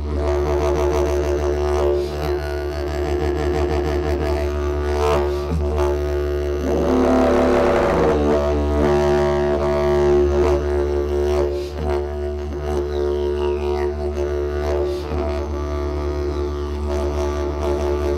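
Didgeridoo playing an unbroken low drone, rich in overtones that shift in colour, with a brighter swell in the overtones around seven seconds in.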